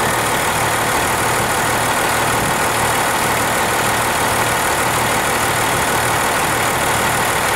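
Cummins 6BT 5.9-litre inline-six diesel idling steadily, run to check its Bosch P-7100 injection pump's delivery valve holders for leaks after new o-rings were fitted.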